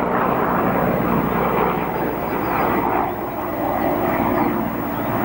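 Helicopter in flight: steady, loud rotor and engine noise with a fluttering beat from the blades.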